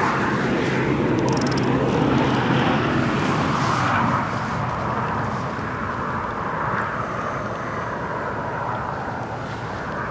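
Steady rumbling outdoor background noise like a distant engine, louder for the first four seconds and easing after.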